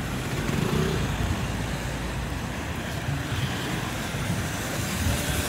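Steady outdoor road traffic noise with a low rumble.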